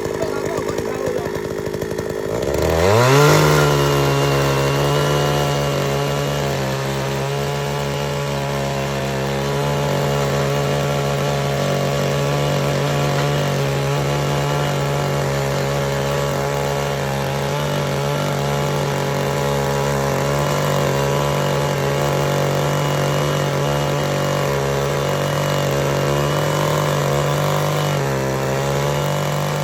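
Small gasoline tiller engine revved from idle to high speed about three seconds in, then running steadily at full throttle, dipping briefly and picking back up near the end.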